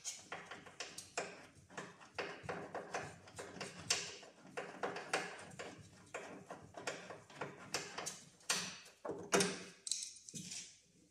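Sharp metallic clicking and ticking, a few clicks a second in irregular runs, from a tool working the headlight mounting bolts loose.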